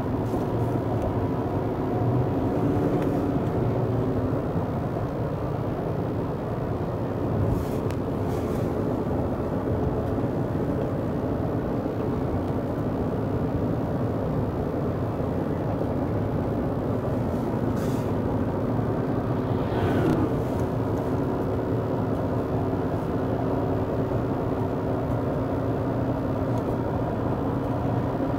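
Steady engine and tyre noise heard inside a vehicle's cab while driving at highway speed, with a few brief clicks or rattles along the way.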